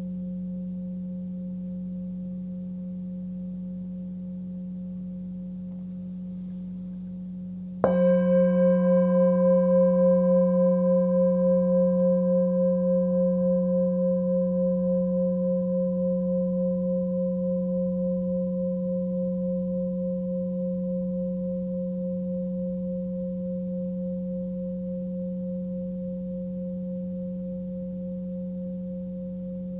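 A 19.7 cm hand-forged Nepalese singing bowl tuned to F# (181 Hz) hums steadily. About eight seconds in it is struck once and rings out with a cluster of bright overtones that fade over several seconds. The deep hum carries on underneath, pulsing gently as it slowly dies away.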